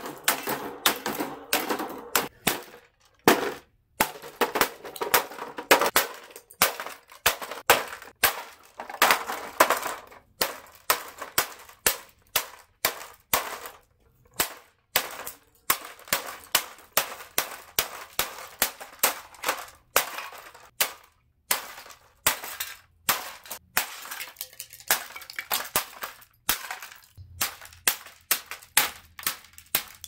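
Galaxy 16-inch table fan being smashed with repeated blows, about two sharp impacts a second with a few short pauses, its plastic housing breaking apart and metal parts clanging.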